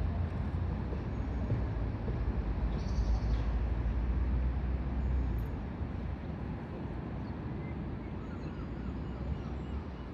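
Outdoor background noise: a low rumble that eases off about five and a half seconds in, with a few faint high chirps near the end.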